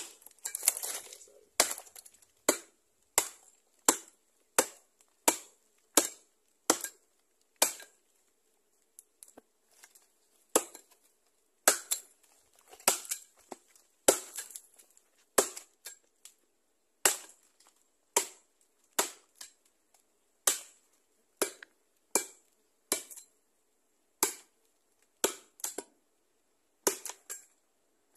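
Machete blade chopping into a dead tree trunk: sharp, evenly spaced blows, a little under two a second, with a short pause about eight seconds in. The trunk is being cut open to reach a wild bees' nest inside.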